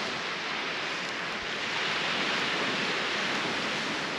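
Lake waves washing steadily on the shore: an even rushing with no single wave standing out.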